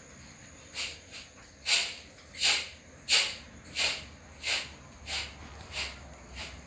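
A parrot giving a run of about nine harsh, hissing calls, evenly spaced at roughly one every 0.7 seconds, loudest in the first half and fading toward the end.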